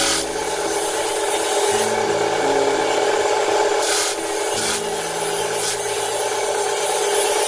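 Industrial machine running steadily with a constant hum of several tones, a lower tone that cuts in and out every couple of seconds, and brief rushing noises about five times.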